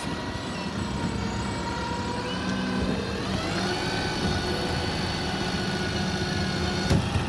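Refuse lorry's diesel engine running as the truck moves slowly past, its note rising about three seconds in and then holding steady. A single thump near the end.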